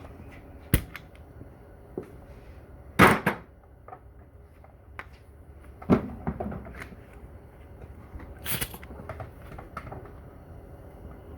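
Scattered knocks and clunks of tools and metal transmission parts being handled, with two louder short bursts about three seconds and eight and a half seconds in.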